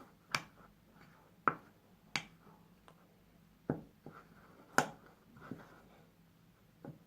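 A spoon clicking against a bowl while stirring a stiff flour-and-shampoo slime dough: about six sharp, irregularly spaced clicks.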